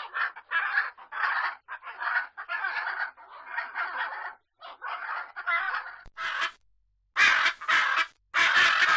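Macaws squawking: harsh, raspy calls in a quick series, about two a second. About six seconds in, a different, brighter recording takes over, with longer squawks separated by short silences.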